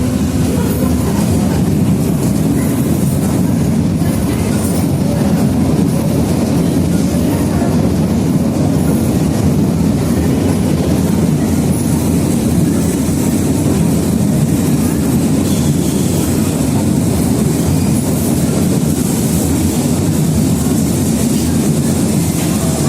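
Berlin U-Bahn A3L-class train running on the track: a steady, loud rumble of wheels and running gear that holds an even level throughout.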